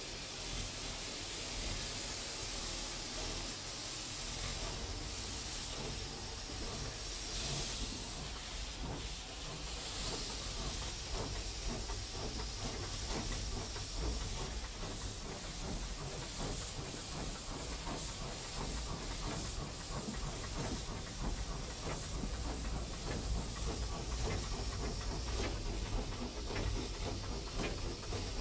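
Steam tank locomotive starting away, heard from the cab: a steady hiss of steam from the open cylinder drain cocks. The low running rumble and rail clatter build toward the end as it gathers speed.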